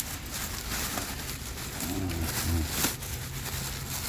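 A dog making two short, low grunting whines about two seconds in, followed by a sharp knock a little before the three-second mark.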